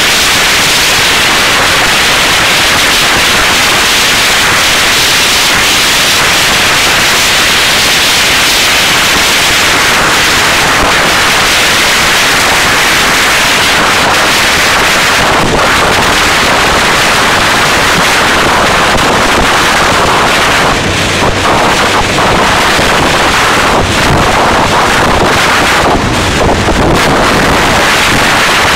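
Loud, steady wind noise buffeting the microphone on a motorcycle riding at high speed. No clear engine note stands out from the rush. The level dips briefly about twenty seconds in.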